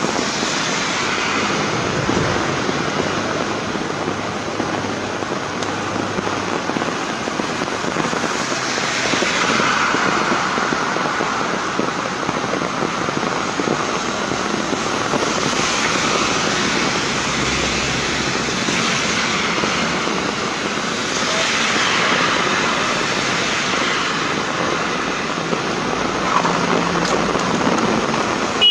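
Heavy rain falling steadily on a street, with vehicles passing on the wet road about four times, each a swell of tyre hiss over the rain.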